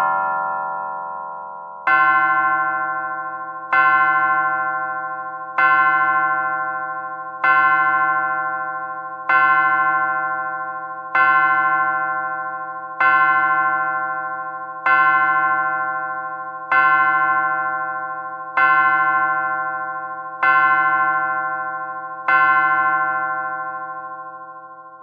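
Antique pendulum clock striking the hour on a chime: twelve even, ringing strokes about two seconds apart, each dying away before the next, the last fading out. A chime melody ends just before it.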